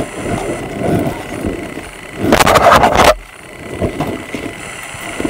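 Bodycam handling noise: the camera rubbing and scraping against clothing and the patrol car's back-seat upholstery as the officer leans into the car. A louder scraping comes about two seconds in, lasts about a second and cuts off suddenly.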